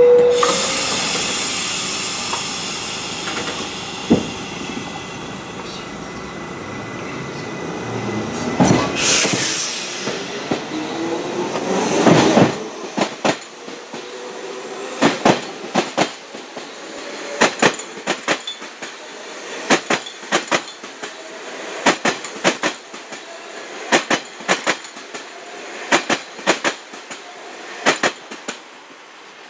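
New York City subway train pulling out of the station. A short chime tone sounds at the start, the motors whine up in rising pitch as it gathers speed, and then its wheels clack over a rail joint in pairs about every two seconds as the cars roll past.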